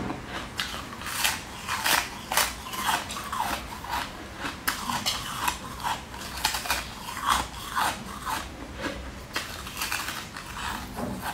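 Crisp, irregular crunches from biting and chewing a piece of hard coloured sweet ice, about one or two bites a second, close to the mouth.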